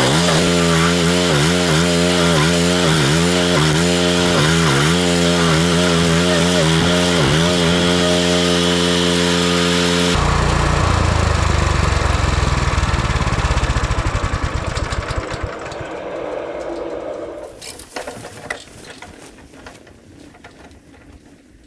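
Petrol engine of a Victory GSF-1500 stump grinder (420 cc, 15 hp) running at high speed, its pitch dipping again and again under load as it grinds into the root. About ten seconds in it is switched off and winds down to a stop, its beat slowing and fading.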